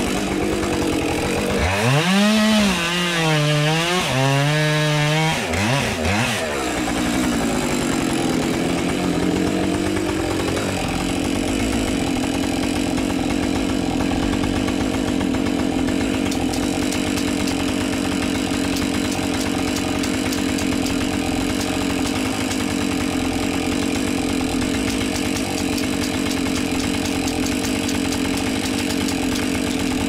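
Two-stroke chainsaw running at high revs and cutting wood. For the first few seconds its pitch wavers up and down under load, then it holds a steady note through a long cut.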